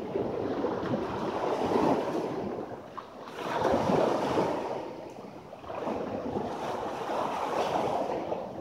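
Sea surf breaking on a sandy shore, the waves washing in and drawing back in surges every couple of seconds, loudest about four seconds in.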